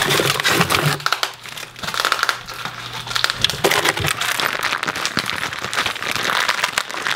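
Clear plastic packing bags crinkling and rustling as they are handled and pulled out of the stainless steel drum of a chicken plucker, among its rubber plucking fingers.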